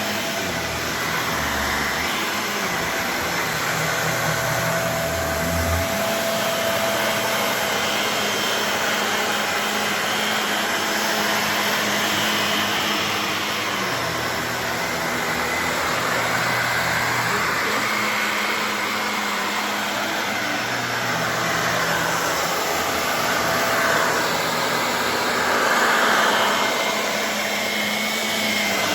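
Shark Navigator Lift-Away upright vacuum cleaner running steadily, a constant motor whir and rush of air from the brush roll working a shag rug. It swells a little louder twice near the end.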